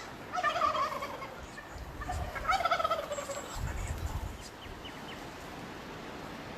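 Two gobbles from a wild Merriam's turkey gobbler, each a quick warbling rattle falling in pitch, about a second and a half apart. Low rumbles, likely wind or handling on the microphone, come with the second gobble and just after it.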